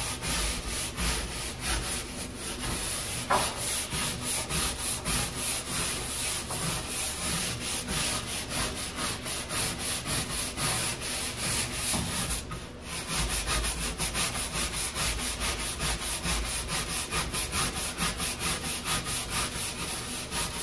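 Stiff-bristled brush scrubbing back and forth on a textured non-skid fiberglass boat deck in rapid, even strokes, working adhesive remover into spray-adhesive residue. There is a short pause about two-thirds of the way through.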